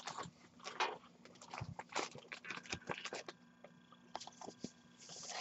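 Hockey trading cards being handled and slid over one another: faint, irregular clicks and short rustles, busiest in the first three seconds, then sparser.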